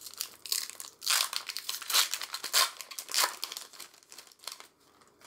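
Foil booster pack wrapper crinkling and tearing in quick crackly bursts as it is handled and opened, loudest about one to three seconds in and fading near the end.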